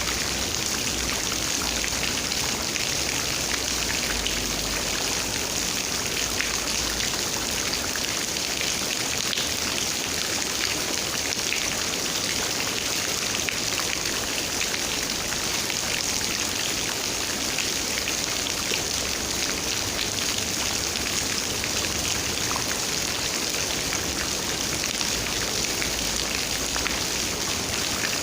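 Steady rain falling, many small drop hits over an even hiss, with a low rumble at times.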